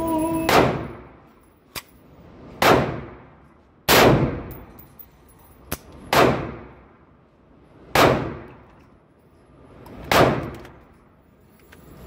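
Semi-automatic 5.56 rifle fired six times at a slow, steady pace, about one shot every two seconds, each report ringing off the walls of an indoor range. Two faint clicks fall between the shots.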